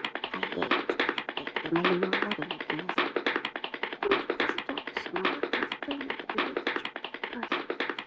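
Rapid, even tapping, about nine taps a second, over faint music.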